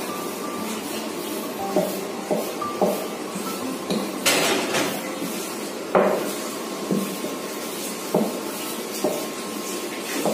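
Wooden rolling pin rolling out a thin sheet of wheat dough on a wooden board, knocking and clacking irregularly against the board. A brief swish comes about four seconds in, and a sharper knock a couple of seconds later.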